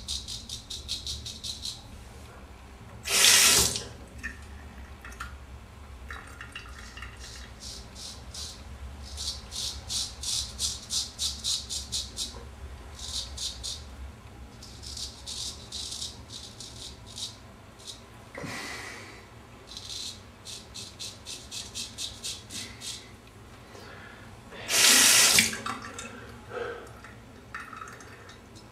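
Keen Kutter #44 straight razor scraping through lathered stubble in runs of short, crisp strokes, about four or five a second. Two brief, louder splashes of water come about three seconds in and again near the end.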